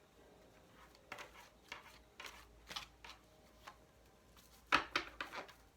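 Oracle cards being shuffled and handled: a string of soft taps and flicks, with a louder quick cluster of card slaps near the end.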